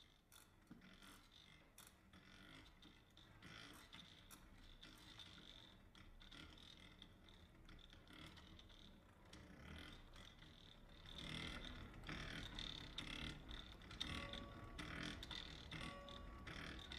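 Faint, irregular creaking and clicking of a stationary exercise bike being pedalled. It grows louder about two-thirds of the way through, and a soft tone repeats a few times near the end.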